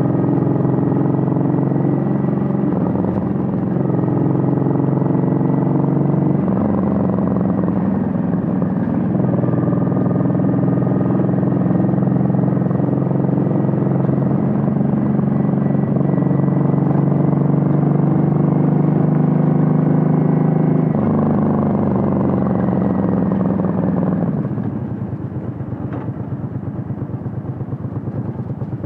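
Suzuki VL800 Volusia's 805 cc V-twin exhaust on the move, running steadily under throttle with the engine note changing in a few steps. Near the end the throttle eases off and it drops to a quieter, lower-revving off-throttle burble.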